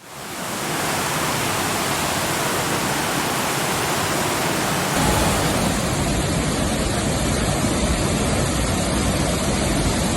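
Waterfall: a steady rush of falling water that fades in at the start. About five seconds in it changes to a deeper, fuller rush.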